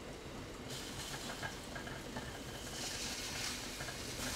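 Milk pouring from a carton into a glass bowl of cut fruit and ice: a soft, steady splashing patter that gets brighter about a second in.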